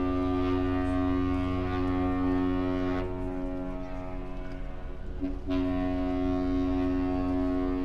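The cruise ship Ryndam's horn sounding long, steady blasts as it departs: one blast cuts off about three seconds in, and another starts about two and a half seconds later. A low rumble runs underneath.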